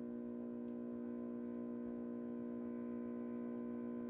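Steady electrical mains hum, an even buzzing tone that does not change.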